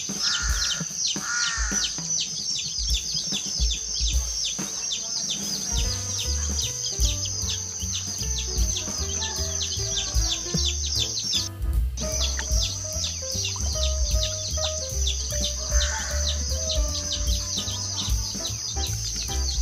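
Background music with a steady bass beat, over constant high, rapid chirping that breaks off for a moment about halfway through.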